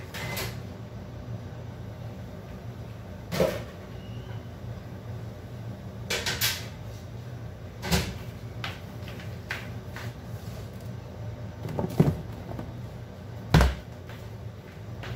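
A handful of sharp knocks and clacks at irregular intervals in a kitchen, over a steady low hum.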